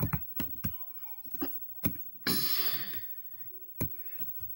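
Scattered sharp computer mouse clicks while drawing, with one short breathy exhale about two seconds in.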